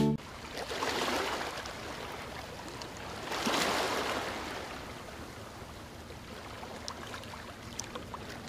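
Underwater water noise, a rushing, bubbling hiss that swells twice, about a second in and again about three and a half seconds in, with a few faint clicks near the end.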